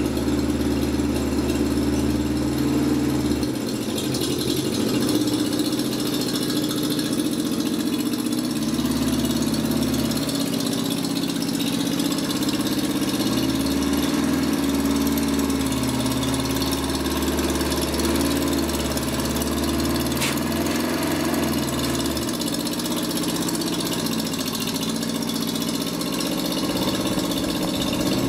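Old propane-fuelled Hyster forklift's engine running at idle, its low note shifting several times as the truck is worked.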